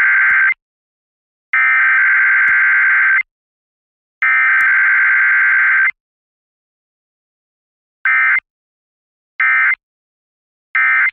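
Emergency Alert System SAME data bursts, the harsh buzzing digital tones of the encoded alert. There are three long header bursts, the first already sounding and ending just after the start, then about two seconds later three short end-of-message bursts about a second apart.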